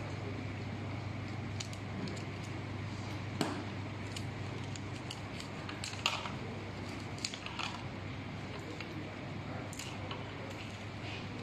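Scattered light clicks and a few sharper knocks, the loudest about three and a half and six seconds in, from parts and tools being handled during work on an e-scooter's brakes, over a steady low hum.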